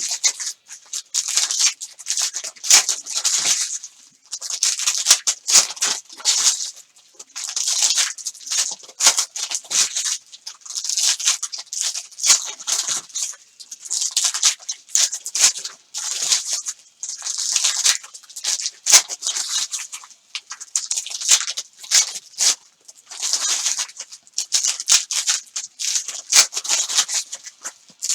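Basketball card pack wrappers crinkling and tearing as pack after pack is ripped open by hand, an irregular run of crackly rustles with short pauses between packs.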